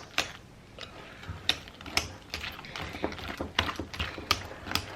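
A mixing utensil stirring thick batter in a mixing bowl, with irregular clicks and taps as it knocks against the bowl.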